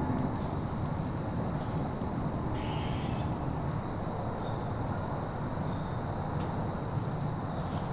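Woodland outdoor ambience: a steady low rumble with a few faint, short bird chirps.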